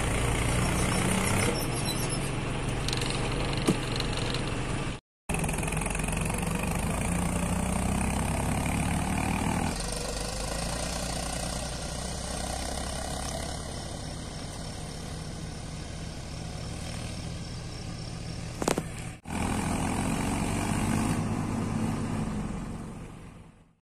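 Diesel engines of a tractor and a JCB backhoe loader running, their speed rising and falling several times, with one sharp knock. The sound cuts out briefly twice and fades away near the end.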